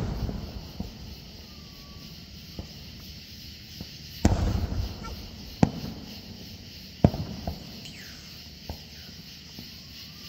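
Aerial firework shells bursting: a series of sharp bangs at irregular intervals, the loudest about four seconds in, trailing off in a rumble.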